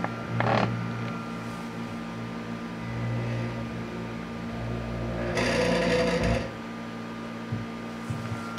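Small stepper motors of a scanning club light driving its mirrors: a steady mechanical buzz with a louder, rougher stretch around the middle. One of the motors is running noisily.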